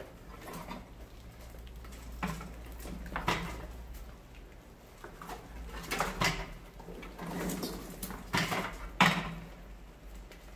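Homemade bucket rat trap clattering: hinged clear plastic platforms tip under rats and knock back into place while rats drop into the plastic bucket and scrabble about. A series of sharp clatters, the loudest near the end.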